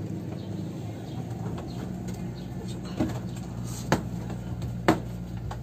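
Boat engine running with a steady hum. About three seconds in come three sharp knocks, roughly a second apart.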